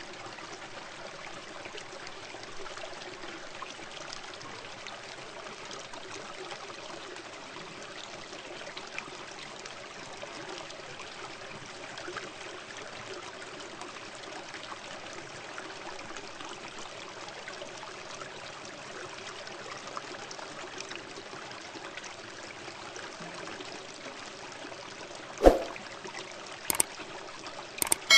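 Steady trickle of water running into a shallow fish tank. A sharp click comes about 25 seconds in, and two fainter clicks follow near the end.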